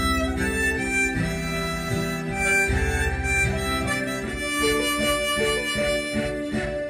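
Instrumental background music: a melody of held notes over a steady accompaniment.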